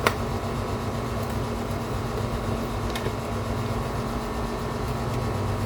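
Air conditioner running with a steady hum, with a sharp click right at the start and a fainter click about three seconds in.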